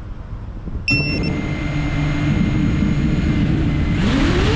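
FPV quadcopter's brushless motors and propellers start spinning about a second in, with a brief high tone at the start, then run at a steady idle whine. About four seconds in they throttle up and the whine rises in pitch as the drone lifts off.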